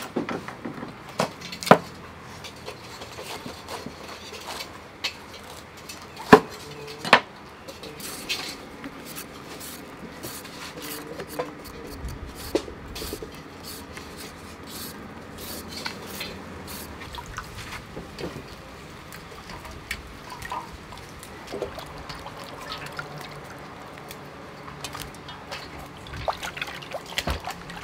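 Cleaver cutting a cabbage on a wooden cutting board: a few sharp knocks in the first seven seconds. After that, lighter scraping and small clicks as a blade peels a carrot.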